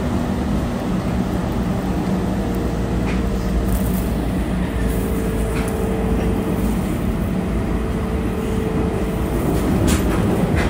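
Running noise of a JR 313 series electric train: a steady rumble of wheels on rail with a faint steady hum that dies away a little before the end, and a few sharp clicks.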